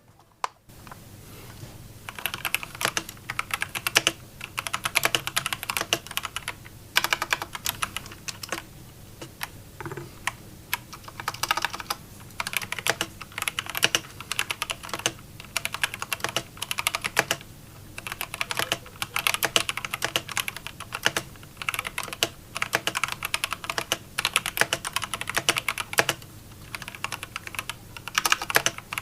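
Typing on a KBM68 mechanical keyboard with KeebMonkey Iceberg switches and PBT Cherry-profile keycaps: rapid key clacks in bursts with short pauses, starting about two seconds in.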